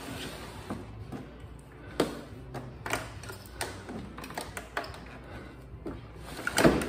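Metal battery tray loaded with a heavy lithium battery pack being pushed along its greased slide rails into a mower's battery bay: a string of scattered knocks and clicks, with the loudest clunks near the end.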